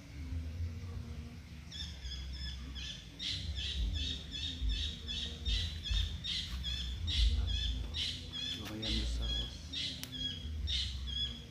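A bird calling over and over in short high chirps, about three a second, starting about two seconds in, over a low rumble.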